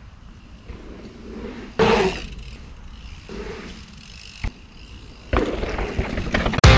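Mountain bike tyres rolling and skidding on a packed-dirt jump line, with a louder rush of tyre noise about two seconds in and again from about five seconds, over a steady low rumble of wind on the microphone. Rock music cuts in right at the end.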